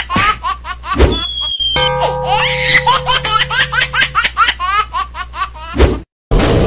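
A high-pitched cartoon voice in rapid, short, rising cries, close to laughter, over a cartoon sound-effect bed. A thud comes about a second in and another just under two seconds in, with a short high whistling tone between them.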